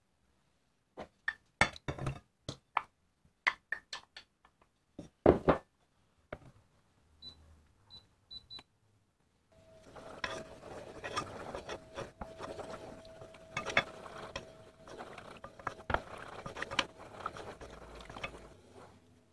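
A run of knocks and clicks, then three or four short high beeps like a cooktop's touch controls. About nine seconds in, a wooden spoon starts stirring and scraping in a nonstick saucepan of melting butter, water and milk, over a steady hum.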